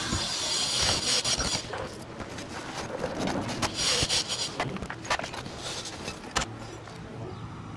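Asphalt shingles being pried loose and pulled off a roof by hand and hammer: rough scraping and rubbing with irregular sharp knocks, the sharpest knock near the end.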